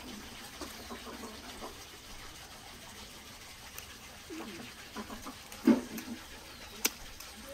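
A few short animal calls, the loudest about two thirds of the way in, with a sharp click near the end.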